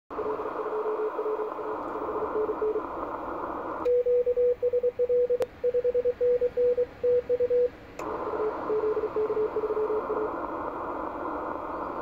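Morse code (CW) on an Icom IC-7600 transceiver on the 17 m band: a weak station keying through steady band hiss, then, about four seconds in, a louder clean sidetone with the hiss cut off as the operator sends his own reply on semi break-in. Near the eight-second mark the hiss returns with the weak keyed signal, which stops about two seconds later, leaving only hiss.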